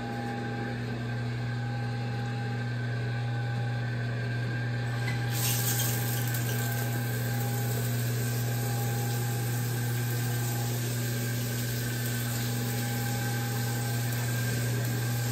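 Shower running: water spraying from the shower head onto tile as a steady hiss over a steady low hum. The hiss gets brighter about five seconds in.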